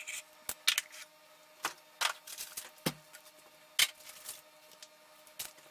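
Clinks and knocks of a glass saucepan lid and a stainless steel saucepan with its ladle being handled and taken off a table, a string of separate sharp clatters over a faint steady hum.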